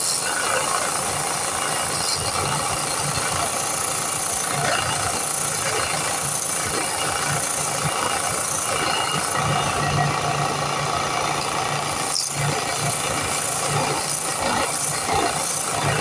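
A power sander running steadily as a wooden knife handle is sanded down, its low hum strengthening and easing as the work is pressed on and eased off.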